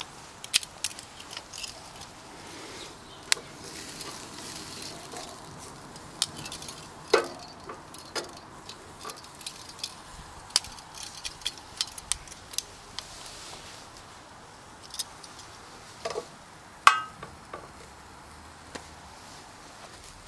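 Metal grill tongs clicking and clinking against the steel grate of a charcoal grill as a pork tenderloin is gripped and turned: a scattering of sharp metallic clicks, two louder clanks about 7 and 17 seconds in.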